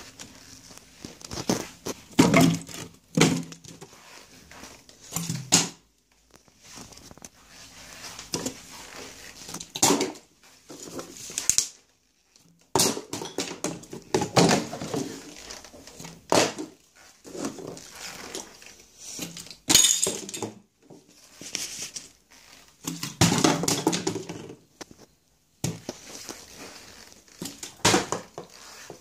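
Repeated thuds, knocks and clatters of bottles and plastic containers being flipped and landing on a stone kitchen countertop. Several louder sounds with a pitch to them come in between.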